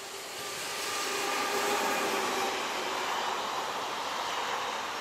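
SNCF BB 22200 electric locomotive hauling Corail coaches past at speed: a rush of steel wheels on rail that swells to its loudest about two seconds in and holds as the coaches roll by, with a faint steady hum of a few tones over it.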